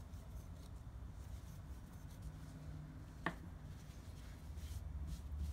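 Faint scratchy rubbing of thick cotton cord being worked with a crochet hook, with one short sharp tick about three seconds in, over a low steady hum.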